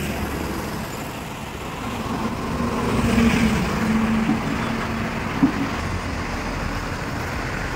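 Road traffic passing on a highway, with one vehicle's engine drone swelling and fading about the middle. A single short knock comes about five seconds in.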